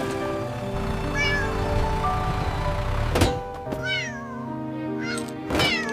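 Cartoon cat meows, several short calls, over steady background music, with a sharp thump about three seconds in and another near the end.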